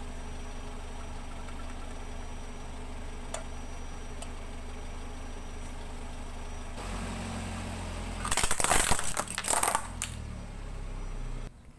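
Car engine idling, getting a little louder about seven seconds in as the car rolls forward; then a tyre crushes a hard plastic toy shark, giving about two seconds of loud cracking and crunching plastic, the loudest sound here. The engine hum cuts off abruptly near the end.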